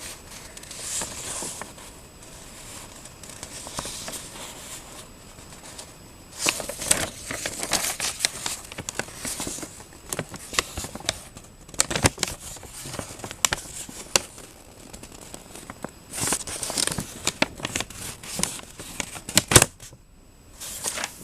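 Paper being handled, rustling and crinkling, with many sharp clicks and crackles that grow busier and louder after the first few seconds.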